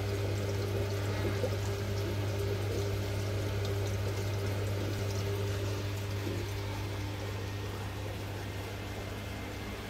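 Water pouring steadily from a pump's outlet hose into a filter sock in an aquarium sump, over the steady low hum of the running pump.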